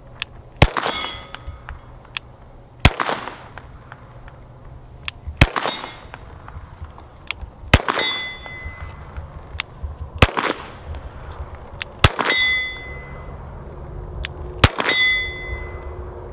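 Glock 44 .22 LR pistol fired seven times at a steady pace, about one shot every two to two and a half seconds. Most shots are followed by the brief high ring of a 10-inch steel target plate being hit.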